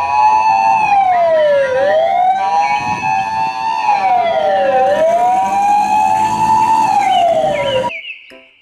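Siren of a Japanese fire-department ambulance on the road: a wailing tone rising and falling about every two seconds, with a steady two-note hi-lo tone alternating underneath. It cuts off suddenly near the end.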